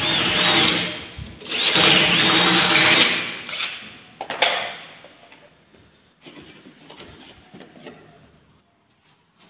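Cordless drill running in two bursts of about a second and a half each, drilling into a sliding-door frame. A sharp click follows, then quieter clatter of tools.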